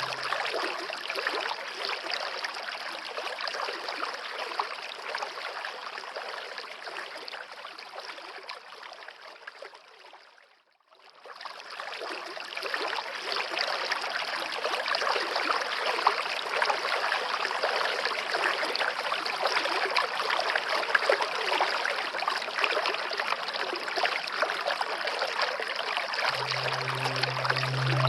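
Running water with a steady, even rush like a stream, fading out to a brief silence about ten seconds in and fading back up. A low steady music tone is heard at the very start and comes back near the end.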